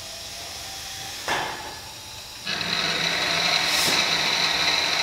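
Milling machine spindle turning a drill bit: a short knock about a second in, then from about halfway the sound gets louder and settles into a steady running noise with a high whine.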